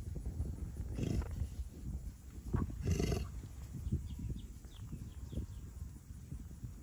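Two grunts from an American bison, about a second in and again near three seconds in, over a steady low rumble.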